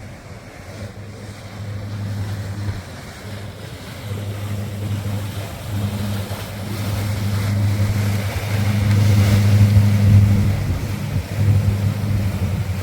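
Low, steady engine hum that grows louder to a peak about ten seconds in, then eases a little, over wind noise on the microphone.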